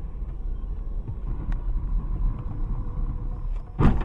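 Steady low rumble of a car driving on a snowy road, heard from inside the cabin through a dashcam. Near the end there is a loud, sudden bang.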